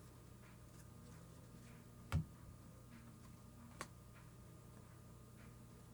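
Baseball cards being handled between reveals: a sharp tap about two seconds in, a lighter click near four seconds and a few faint ticks, over a steady low hum.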